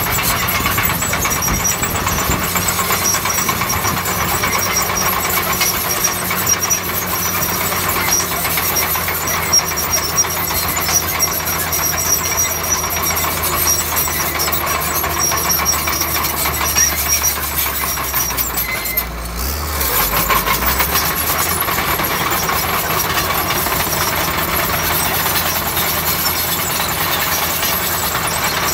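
Bulldozer's diesel engine running steadily under load, with many small clicks over it. The engine note briefly dips and shifts about two-thirds of the way through, then settles again.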